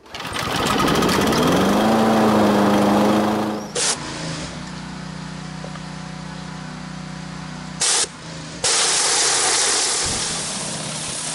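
Over the opening title, an engine-like sound winds up in pitch and then holds steady. It cuts off suddenly at a change of scene, and a steady engine hum from a gas pressure washer follows. From about nine seconds in, the surface cleaner's jets add a loud hiss as they spray the concrete driveway.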